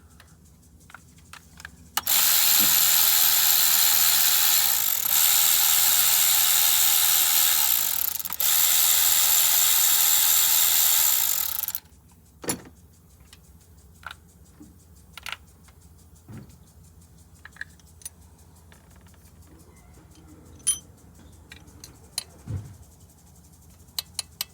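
Power ratchet running in three runs of about three seconds each with short pauses, during a top-end teardown of a Chevy 5.3L V8. Scattered light metallic clicks and clinks of engine parts being handled follow.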